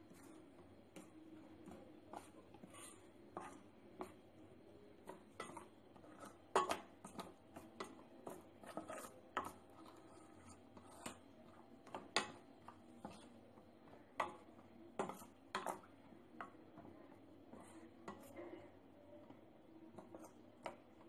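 Metal spoon stirring thick ground lentil batter in a steel bowl, scraping and clinking against the bowl at an irregular pace, with the sharpest knocks about a third of the way in and just past halfway.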